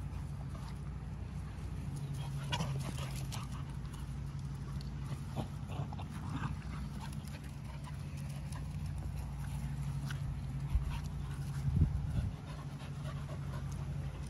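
Two dogs playing on grass: scattered scuffles and small dog noises over a steady low hum, with a couple of sharper thumps late on.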